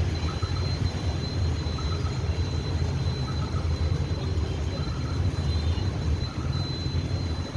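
Busy road traffic: a steady low rumble of engines and tyres on a wet road. A thin high whine runs under it, and a faint short double chirp repeats about every second and a half.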